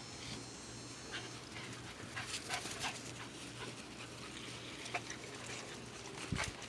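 Puppies panting as they move about on grass, with scattered soft clicks and rustles.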